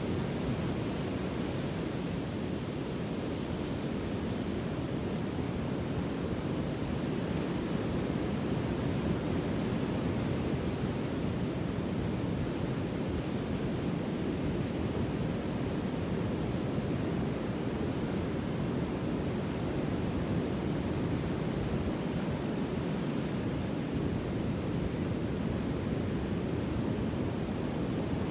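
Sea surf: a steady, low rush of waves with no distinct breaking crashes.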